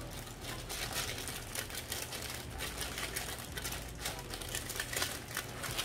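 Tissue paper wrapping rustling and crinkling as it is handled, with many quick crackles.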